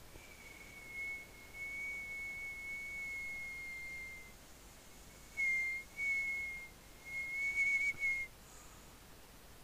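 A person whistling: one long held note, then three shorter notes at about the same pitch.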